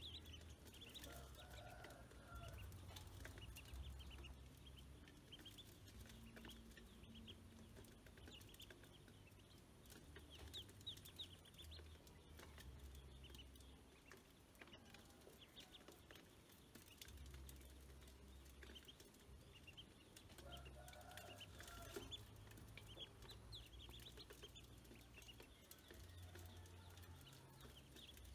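Ducklings peeping faintly in short high cheeps that come in bunches, with the odd tap of bills pecking feed off a metal basin.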